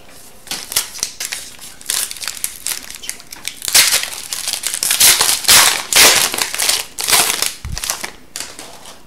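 Wrapper of an Upper Deck Series 2 hockey card pack crinkling as it is torn open and peeled back by hand. It makes a run of crackly rustles over several seconds, loudest through the middle.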